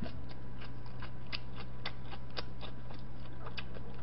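Light, sharp clicks and taps at an uneven pace, about three or four a second, over a steady electrical hum.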